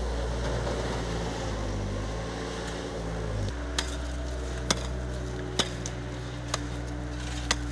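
A skid-steer loader's engine running steadily. About three and a half seconds in the sound changes abruptly, and a long-handled digging tool strikes icy ground five times, roughly once a second, over a low steady hum.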